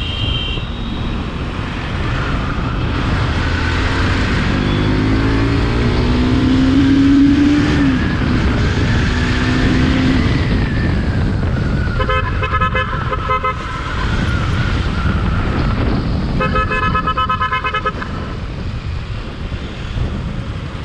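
Bajaj Pulsar NS200's single-cylinder engine running under way in traffic, with wind rushing over the helmet microphone; the revs climb for a few seconds and then fall away. Vehicle horns honk twice in the second half, each for a second or two.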